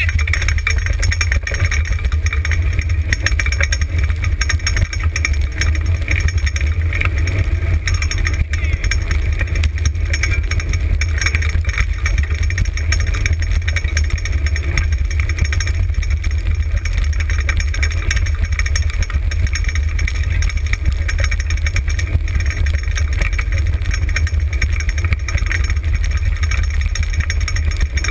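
Dog-drawn dryland racing cart rolling fast over a dirt trail: a steady rattling rumble of wheels and frame, with heavy wind buffeting on the cart-mounted microphone.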